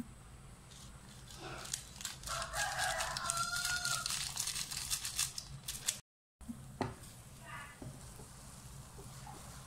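A rooster crowing once, a call of about two seconds, over the crackle of a plastic seasoning sachet being squeezed and shaken over a pan.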